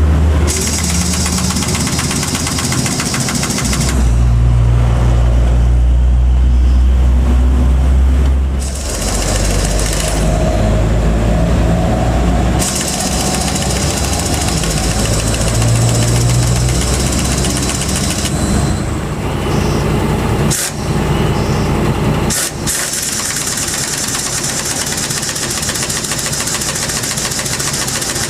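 Diesel truck engine running, its speed stepping up and down several times.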